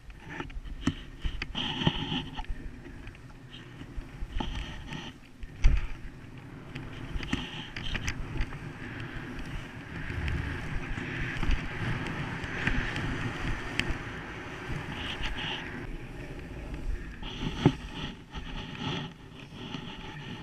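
Skis hissing and scraping over sun-softened snow, with wind on the helmet camera's microphone; the hiss swells and fades through the run. There are a few sharp knocks, the loudest about six seconds in and another near the end.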